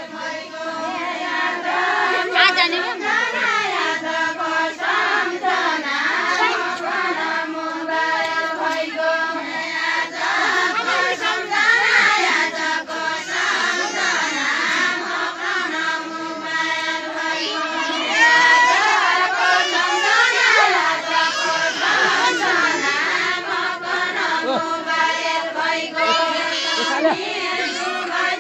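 A group of women singing a Deuda folk song together, many voices on long drawn-out notes, with the crowd around them.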